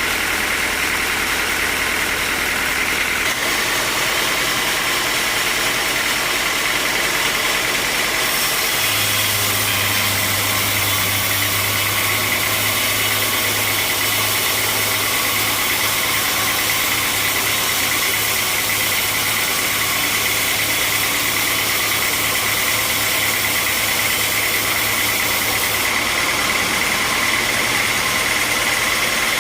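Sawmill machinery running steadily with a high whine; a deeper hum and more hiss come in about nine seconds in and drop away near the end.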